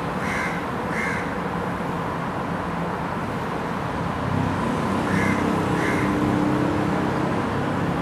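A bird calling, crow-like, in two pairs of short calls, one pair just after the start and another about five seconds in, over a steady background hum of traffic. A low rumble joins the hum at about four seconds.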